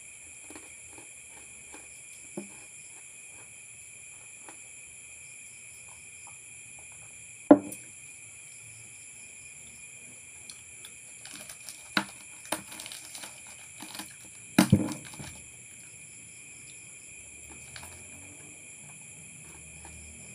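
A steady high-pitched chorus of crickets, with scattered small clicks and crunches of someone eating crackers. A few sharp knocks on the table stand out, the loudest about seven and a half seconds in and another pair near fifteen seconds.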